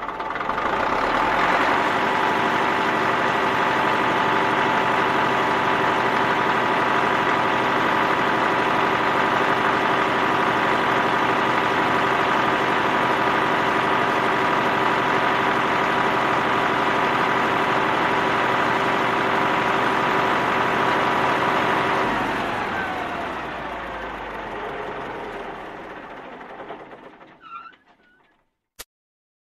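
Heavy vehicle engine running steadily, with a high whine over it. About 22 seconds in it shuts off, the whine falling in pitch as it winds down and fades away. A single sharp click comes near the end.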